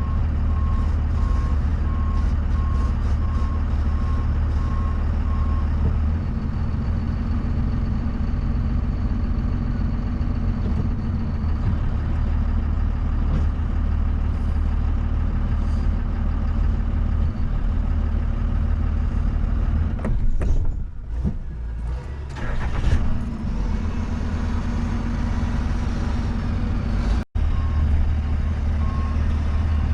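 Truck engine and road noise while driving, a steady low hum, with a repeating electronic beep for the first few seconds and again near the end. The sound drops out for an instant about three seconds before the end.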